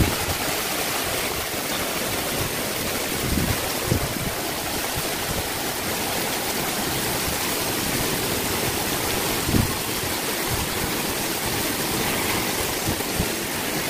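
Heavy monsoon rain pouring down in a steady, dense hiss. A few brief low thumps stand out about a third of the way in and again past the middle.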